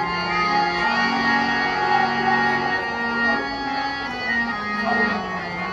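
Organ-toned keyboard music: sustained notes stepping through a slow melody.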